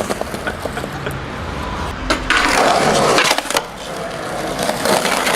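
Skateboard wheels rolling over pavement with scattered clacks, growing louder for about a second partway through, then a few sharp clacks near the end.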